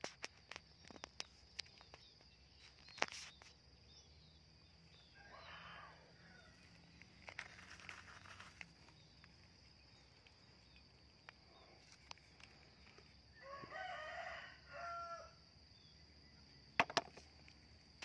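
A rooster crows once, about three-quarters of the way through, over a steady high insect drone. Scattered sharp clicks and knocks, the loudest about a second before the end, come from plastic toys being handled.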